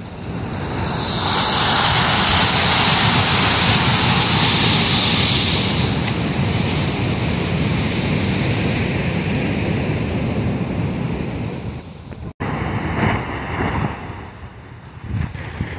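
Small surf breaking and washing up the beach, with wind buffeting the microphone. The sound cuts out for an instant about twelve seconds in and returns quieter.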